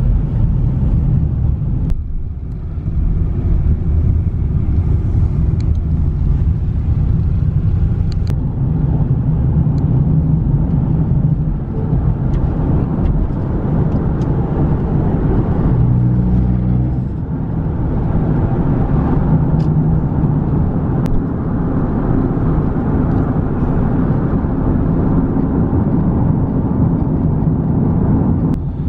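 A car driving: a steady, low rumble of engine and road noise.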